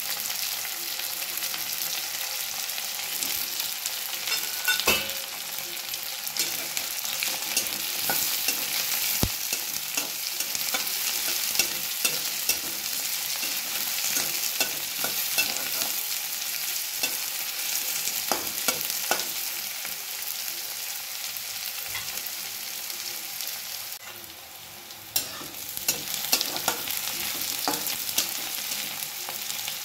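Chopped onions and green chillies sizzling in hot oil in a non-stick kadhai, stirred with a spatula that scrapes and clicks against the pan now and then. The sizzle drops briefly about four-fifths of the way through before picking up again.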